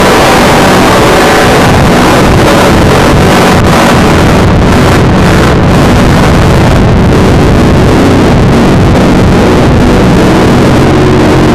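Lo-fi band demo recording driven into heavy distortion: a loud, clipped wall of noise with a rumbling low end and no clear notes.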